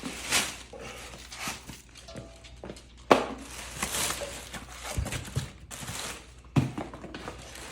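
Items being handled during an unboxing: scattered knocks and rustling, with sharper thumps about three, five and six and a half seconds in. The compressor itself is not running.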